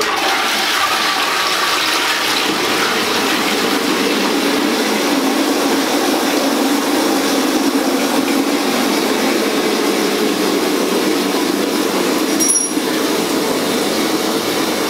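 Water rushing steadily into a concealed toilet cistern through its fill valve, a continuous hiss. A small click about twelve and a half seconds in.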